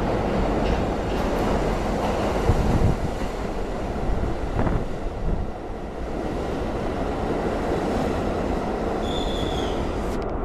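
Kawasaki R62 subway train pulling into an underground station: a steady loud rumble of the cars and wheels running over the rails, with a high metallic squeal setting in near the end.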